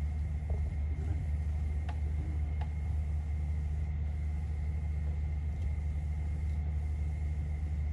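Steady low rumble with a faint, constant high whine, unchanging throughout.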